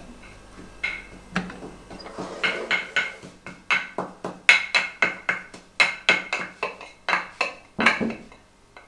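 Wooden pestle pounding into a wooden mortar, crushing herbs. It strikes about two to three times a second, softly at first and harder from a couple of seconds in. Each knock rings with the echo of a small tiled room.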